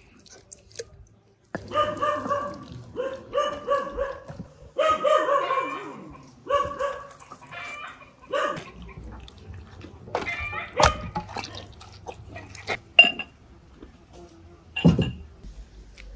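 A dog barking in quick runs of short, high barks through the first half, followed by a few sharp knocks and clicks.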